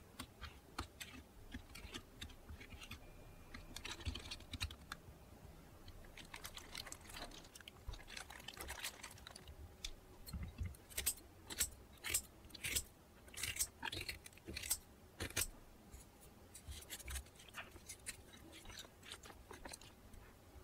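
A small plastic spoon stirring chili-paste sauce in a stainless steel bowl, clicking against the metal, then a spoon tossing yeolmu kimchi with sugar in a bowl. About halfway through the clicks grow louder, coming about once or twice a second.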